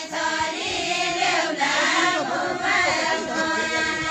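A group of villagers singing a Deuda folk song together in the open air, many voices holding and sliding through the tune at once.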